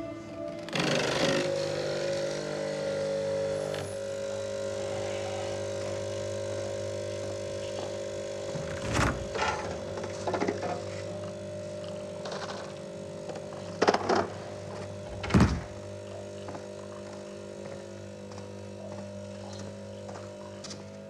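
Quiet background score of sustained, held tones, with a few short knocks and thuds over it. There is a longer clatter about a second in, knocks around nine and ten seconds, and two louder sharp knocks near fourteen and fifteen seconds.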